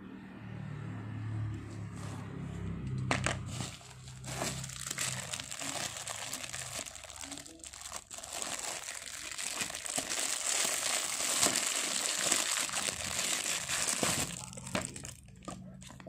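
Thin clear plastic wrapping crinkling and crackling as a plastic food container is handled and unwrapped by hand, with many sharp crackles. It builds up a few seconds in, is loudest toward the end, then eases off.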